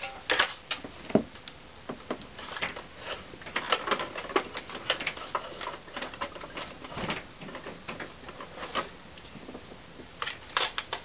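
Irregular light clicks and taps of hands handling a stereo receiver and its wires, with small plastic parts knocking.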